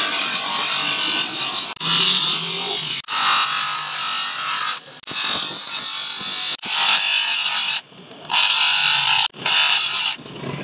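Wooden knife handle being sanded on a disc spun by an electric motor's tapered spindle: a loud, steady hiss that cuts off and starts again abruptly several times.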